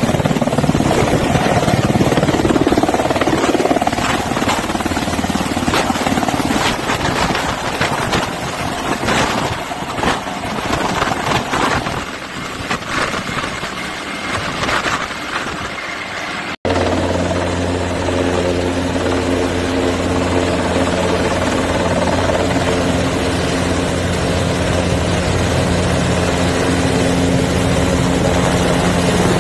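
KUH-1 Surion twin-turboshaft helicopter lifting off and climbing away, its rotor noise fading somewhat as it moves off. After a sudden cut it hovers close by, with a steady rotor and engine hum.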